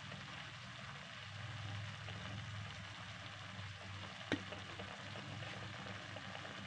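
Thin slices of beef cooking in a pan with a little water, sizzling steadily, over a low steady hum. One sharp click about four seconds in.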